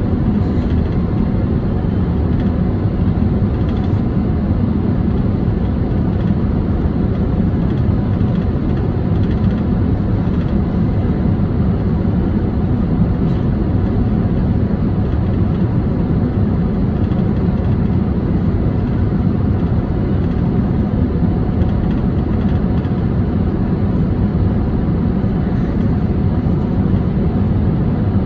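Steady cabin noise inside a Boeing 747-400 on final approach with the landing gear down: the rush of airflow and the jet engines, heavy in the low end.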